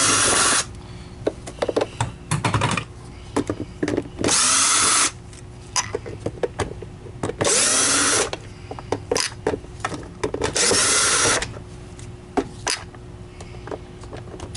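Cordless drill-driver with a Torx 20 bit backing screws out of a plastic vacuum cleaner housing: four short runs of about a second each, with clicks and knocks of plastic parts being handled between them.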